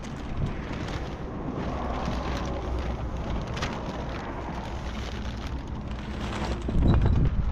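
Wind buffeting the microphone with rain falling, a steady rushing noise that swells louder near the end.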